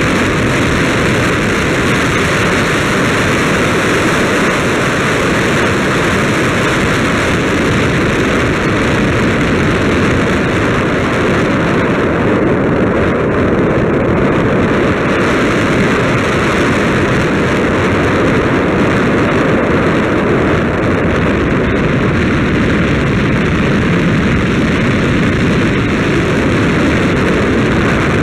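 Steady, loud rush of wind over the microphone of a camera moving along a road, with no clear engine note.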